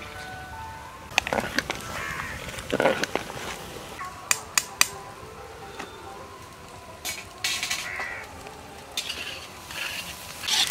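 A metal ladle stirring and knocking against metal cooking pots, with a series of sharp clinks and scrapes, several in quick succession about four seconds in.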